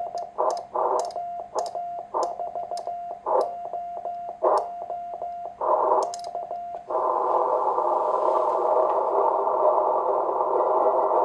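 Morse code (CW) being sent on a paddle through a homebuilt 1Watter transceiver: a keyed sidetone near 700 Hz, with sharp pops and bursts of receiver noise between the characters. About seven seconds in the sending stops, and a steady hiss of band noise comes through the narrow audio filter.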